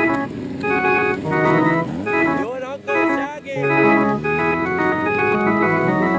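Background music led by an organ-like keyboard playing repeating chord phrases, with a warbling passage of bending pitches about two and a half seconds in.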